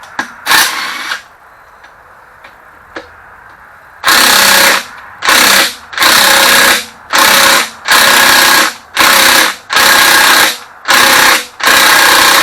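A handheld power tool running in repeated short bursts while backing out the intake manifold bolts of a Ford 351 Windsor V8. There is one burst near the start, then from about four seconds in nine more follow almost back to back, each under a second long.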